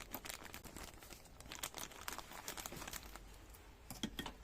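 Thin plastic rice bag crinkling and crackling as it is handled and cut into strips, with irregular crackles and a few sharper snaps near the end.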